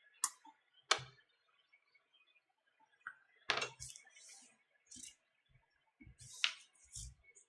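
Scattered sharp clicks and light knocks, with brief rustling, from a tablet and small tools being handled on a workbench.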